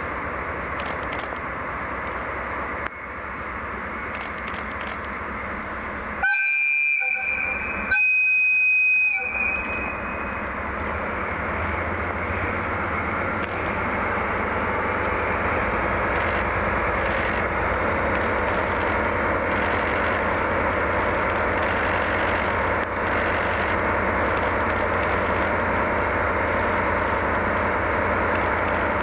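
Two diesel locomotives hauling a freight train: two blasts on the locomotive horn, the second a little longer, about a second and a half apart. Then the engines' steady rumble grows louder as the train approaches.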